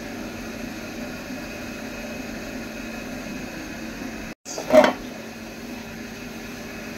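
A steady low mechanical hum with a hiss over it. It drops out for an instant just before the middle, then comes back with one short loud knock.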